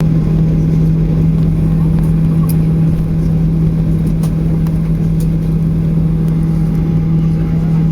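Steady airliner cabin drone on the ground before takeoff: a strong, even low hum from the engines at idle and the cabin air system, with a faint higher tone held throughout.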